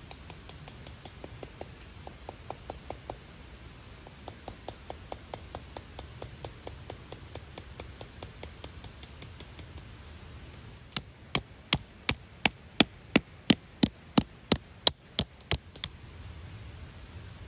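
Repeated hammer-like strikes: a quick run of light ringing taps, about four a second with a short pause, then about fifteen much harder, sharp blows at roughly three a second that stop about a second before the end.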